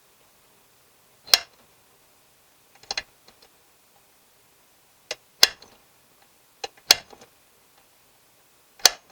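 Hammer tapping a centre punch into the end of a steel mower spindle shaft, marking its centre for drilling: about seven sharp metallic taps, unevenly spaced, each with a short ring.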